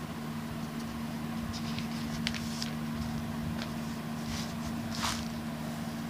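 A few short paper rustles and soft clicks of book pages being handled and turned, the loudest about five seconds in, over a steady low hum.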